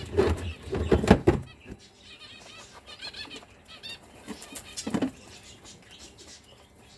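Aviary birds, quail and finches: bursts of wing flapping in the first second or so and again about five seconds in, with two quick runs of high, repeated chirps in between.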